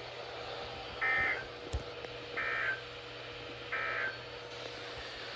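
Emergency Alert System end-of-message code from a weather radio broadcast: three short, buzzy SAME data bursts about 1.4 seconds apart. They mark the end of the tornado warning message.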